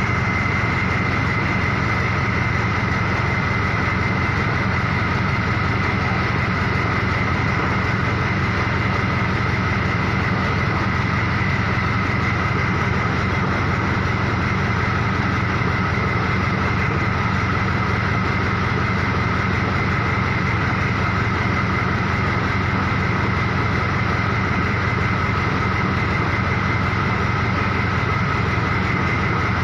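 Truck engine idling steadily, a constant low hum with a steady high-pitched whine over it.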